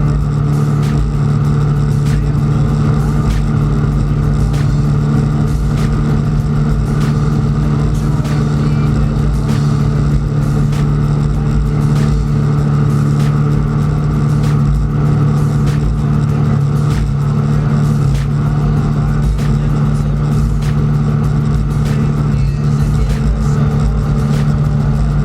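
Drag boat's engine running at a steady high speed, a loud even drone that holds one pitch throughout, heard from on board the boat.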